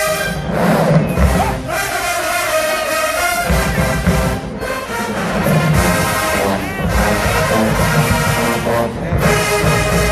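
Marching band playing: a brass section holding pitched chords over a heavy drum line, with the crowd audible beneath.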